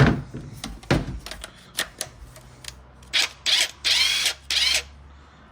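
Makita DTW1001 cordless impact wrench triggered in four short bursts, after a few handling clicks and knocks.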